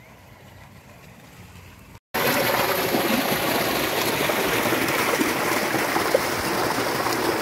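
Tubewell outlet gushing a heavy stream of pumped water into a concrete basin, a loud steady rush of falling water. It starts abruptly about two seconds in, after a stretch of faint background.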